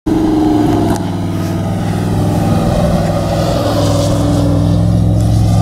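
GMC Yukon Denali SUV's V8 engine running steadily under power as the truck drifts across loose desert sand.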